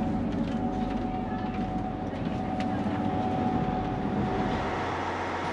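Steady hum inside a Transwa WDA-class diesel railcar standing at the platform, with a faint steady whine and a few light clicks over it.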